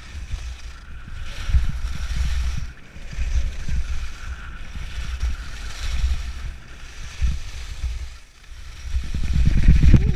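Downhill skiing heard from a helmet camera: wind buffeting the microphone and skis scraping over packed snow, swelling and easing every second or two through the turns.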